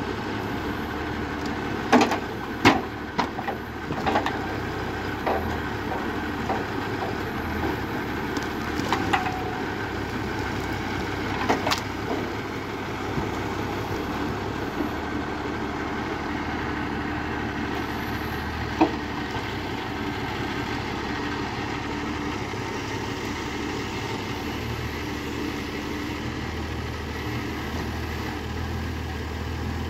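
Valtra 8350 tractor's diesel engine running steadily, driving the hydraulics of a Palms 12D forestry crane loading logs. Sharp knocks of logs striking one another and the trailer come in a cluster a few seconds in, with a few more later on.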